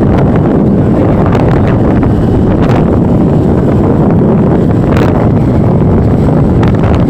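Loud, steady wind buffeting on the microphone while riding a TVS Jupiter Grande scooter at speed, with the ride's engine and road noise lost under it.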